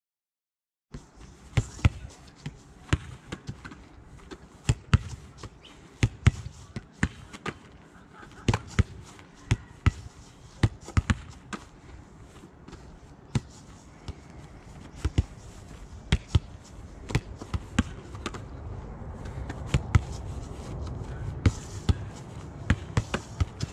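Football kicked against a brick wall and rebounding, with a second ball thrown and caught by hand: a run of sharp thuds at irregular intervals, one or two a second, starting about a second in.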